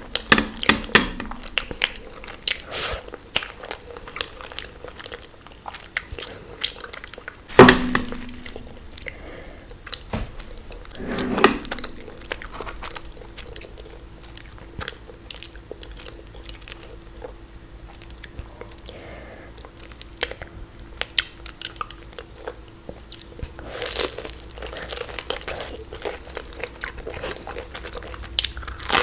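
Close-up eating sounds: steady chewing with many small crunchy, clicking bites. A few louder sharp sounds stand out, the loudest about eight seconds in.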